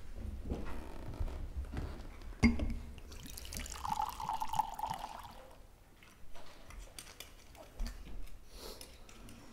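A sharp knock, then red wine poured from a bottle into a wine glass, a liquid pour lasting about two seconds.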